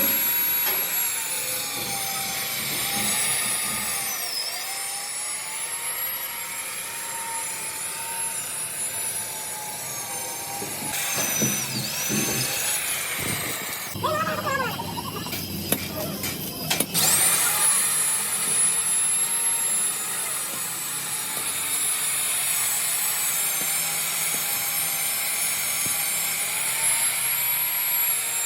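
Workshop power tool running with a high steady whine that dips in pitch a couple of times, as under load. About halfway through comes a stretch of clattering and scraping on metal.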